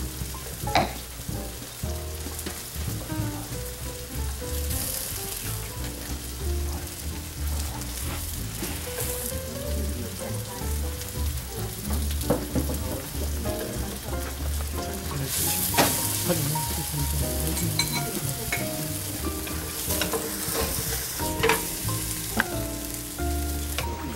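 Slices of firm tofu sizzling in shallow vegetable oil in a nonstick pan as they pan-fry golden brown, the sizzle swelling now and then. Now and then a sharp click as wooden chopsticks turn the pieces against the pan.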